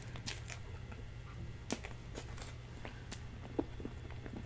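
Faint eating sounds: a few scattered soft clicks and mouth sounds of someone eating cheesecake, over a low steady hum.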